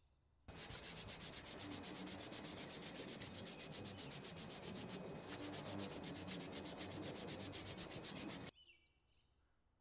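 Aerosol spray-paint can spraying a coat of paint onto a car hood: a steady hiss with a fast, even pulsing, starting about half a second in and cutting off abruptly near the end.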